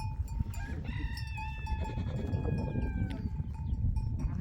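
A rooster crowing once: one long call of about two seconds, falling slightly in pitch and cutting off suddenly. Under it runs a low, steady rumble.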